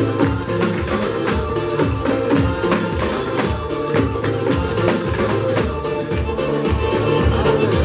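Music for an Adyghe dance: a fast melody over a steady beat, with a noise orchestra's hand percussion shaking and striking along.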